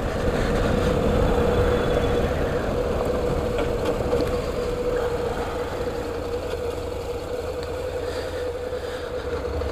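Honda NC700X motorcycle's parallel-twin engine running steadily at low speed as the bike rolls along a gravel road, with a constant hum over a low road-and-wind rumble, getting slightly quieter near the end.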